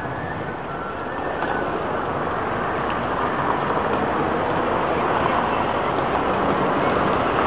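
Street traffic noise: a steady rush that grows louder from about a second and a half in as a vehicle passes close.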